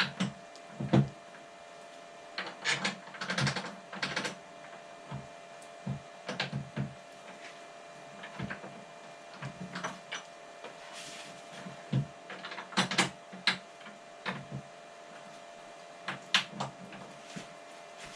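Irregular clicks, knocks and light rattles of metal parts and bolts being handled and fitted while a snowblower handle is assembled, over a faint steady hum.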